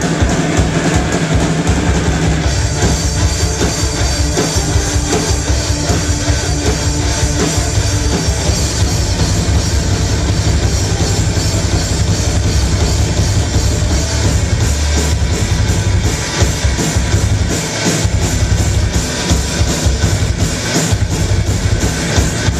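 Loud live heavy rock band playing: pounding drum kit, electric guitars, bass guitar and keyboard together.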